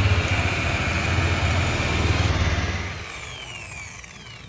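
Electric rotary car polisher with a foam buffing pad running: a steady motor hum with pad noise. About three seconds in it is switched off and winds down with a falling whine.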